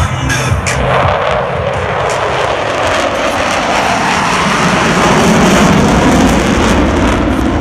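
Jet roar of F/A-18 Hornet jets on a fast flyby, the pitch falling steadily as they pass.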